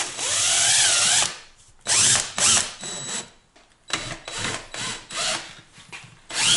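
DeWalt cordless drill driving 1.5-inch screws with fender washers through a steel mounting bracket and half-inch cement board into OSB. It runs in repeated bursts, the first the longest at about a second, with the motor pitch wavering as each screw drives home.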